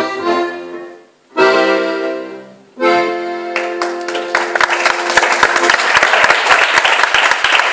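Live folk band playing the closing chords of a traditional Catalan dance tune: a phrase breaks off about a second in, then two held final chords, each dying away. Audience applause breaks out midway through the last chord and grows, carrying on to the end.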